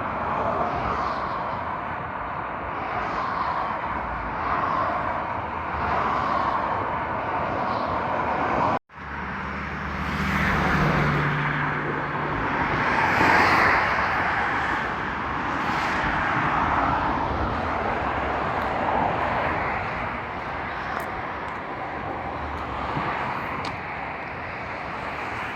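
Road traffic going past: a steady rush of tyre and engine noise that swells and fades as vehicles pass, with one vehicle's low engine hum just after a momentary dropout about nine seconds in.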